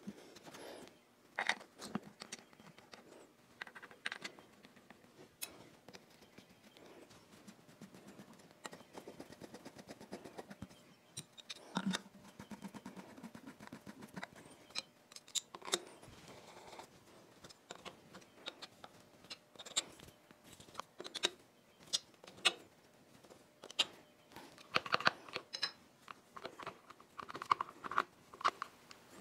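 Scattered light clicks, taps and scrapes of hands and small metal parts being handled at a DoAll milling machine's gearbox head, with a few sharper knocks.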